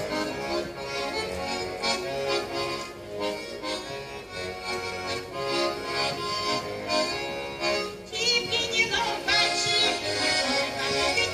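Button accordions playing a lively traditional folk tune. About eight seconds in, women's voices join in singing with a wavering vibrato over the accordion.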